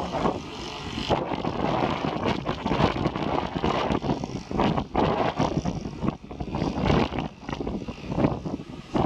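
Strong, gusty wind buffeting the microphone in uneven surges and dips.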